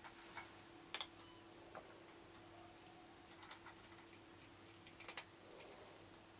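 Near silence with a steady faint hum and a few sharp, irregular clicks, the two loudest about a second in and near five seconds in.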